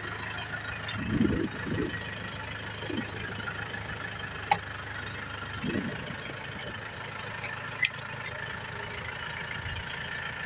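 Tractor engine idling steadily, with two sharp clicks about four and a half and eight seconds in.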